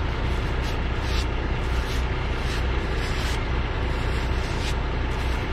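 Kenworth T880 dump truck's diesel engine idling with a steady low rumble. Short soft hisses recur about every three-quarters of a second.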